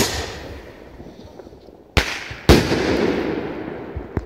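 Kugelbombe (spherical aerial firework shell) launched from its mortar tube with a sharp bang that echoes away. About two seconds later the shell bursts in the air with a loud bang, followed half a second later by a louder one, each trailing off in a long echo.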